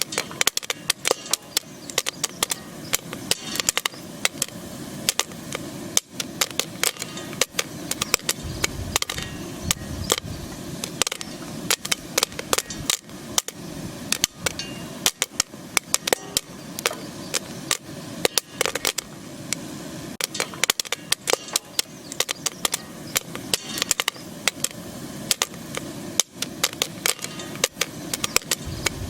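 Popcorn kernels popping in a metal skillet: sharp, irregular pops, several a second, with kernels bouncing off the pan, over a steady hiss.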